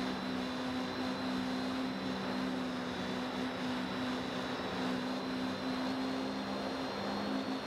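A quadcopter's electric motors and propellers running in flight, recorded from its own onboard camera: two steady low hums and a faint high whine over a steady hiss, the hums stepping slightly in pitch near the end as the motor speeds change.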